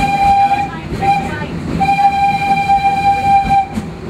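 Steam locomotive whistle on the Wildlife Express Train, one steady pitch: a blast that stops under a second in, a short toot, then a long blast of about two seconds, over the low rumble of the train running.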